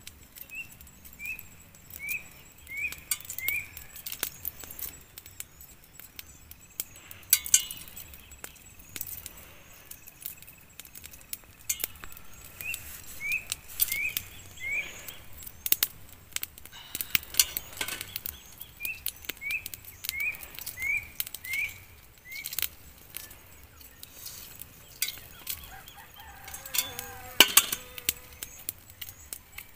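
Eggshells being cracked and peeled by hand over a metal bowl: scattered small clicks and crackles, sharpest about a quarter of the way in and near the end. A bird calls behind it in three runs of five or six short rising notes.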